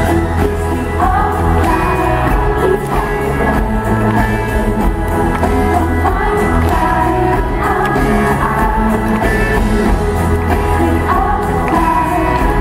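Live pop band playing, with a woman singing lead into a handheld microphone over a steady bass.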